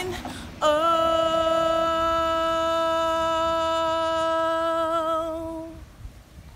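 A woman singing a gospel song unaccompanied, holding one long note after a quick breath; the note wavers with vibrato near the end and fades out about six seconds in.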